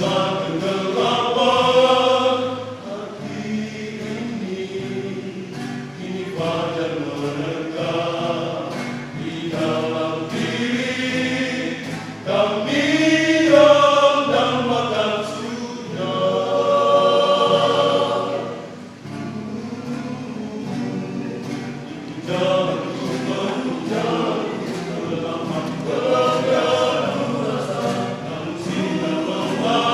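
Men's vocal group singing a gospel song in harmony, accompanied by acoustic guitar, swelling louder in the middle.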